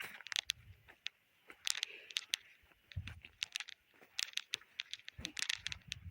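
Footsteps crunching on dry ground: irregular sharp crunches and clicks, with a couple of dull thumps about three seconds in and again near the end.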